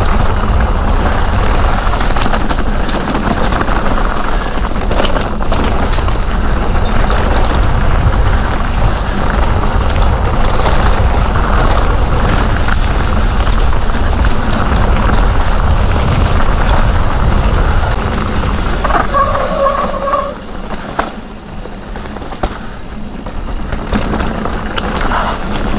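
Canyon Spectral CF 7 full-suspension mountain bike descending a rough dirt trail at speed: a loud, steady rush of wind buffeting on the action-camera microphone and tyres on dirt, with frequent knocks and rattles from the bike over roots and rocks. About nineteen seconds in there is a short high squeal, after which the noise drops for a few seconds as the bike slows.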